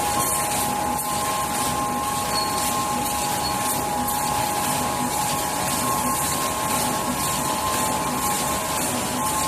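Automatic multi-colour tube UV screen printing machine running: a steady mechanical hum and hiss with a steady two-note whine and a faint regular beat.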